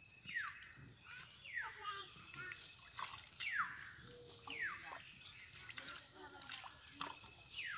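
A bird calling over and over, each call a short falling whistle, five in all about one to two seconds apart. Beneath it are faint sloshing and dripping of muddy water as hands feel through a flooded rice paddy for small fish.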